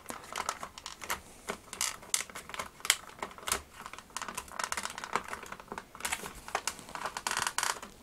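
Hard plastic shell of a vintage Kenner M.A.S.K. Switchblade toy being handled and carefully unhooked apart, giving irregular small plastic clicks and creaks, with a denser run of clicks near the end.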